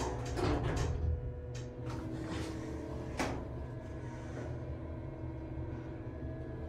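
Otis Series 1 hydraulic elevator: the car doors thud shut in the first second, then a sharp click about three seconds in, with a steady low hum from the elevator running throughout.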